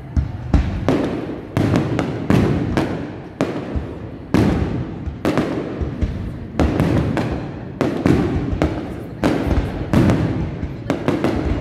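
Aerial firework shells bursting in a rapid, irregular series of booms, roughly two a second. Each bang trails off in a rolling echo.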